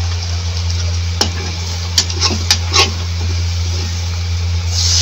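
Spatula stirring onion-tomato masala in a hot pan, with a few sharp clicks of the spatula against the pan over a faint sizzle. A much louder hiss starts near the end.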